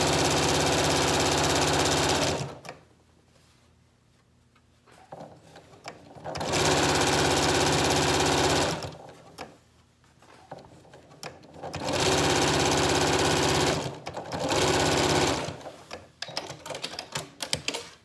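Janome electric sewing machine stitching bias tape onto a curved pocket edge in four short runs of steady fast stitching, each one to two and a half seconds, with pauses between as the fabric is guided around the curve. A few light clicks and handling sounds near the end.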